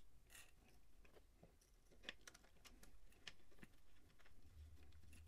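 Faint, scattered small clicks and taps as a Garmin Vector 3 pedal is handled and its spindle is threaded by hand into a bicycle crank arm, over a low steady hum.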